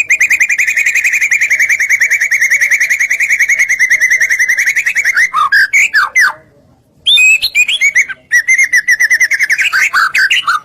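A songbird singing a fast, even trill of rapid chirps for about five seconds. It then breaks into a few falling notes, pauses briefly, and resumes with varied notes and another quick trill. This is bait song ('pancingan') meant to make other birds answer.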